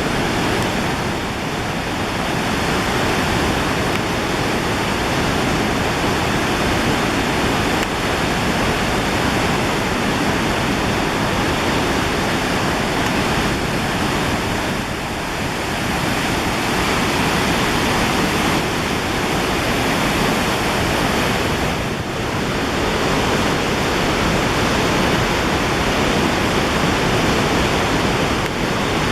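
Roar of the Big Kureysky Waterfall, a low but very high-volume waterfall, with water pouring and crashing in a loud, steady, unbroken rush that dips only slightly a few times.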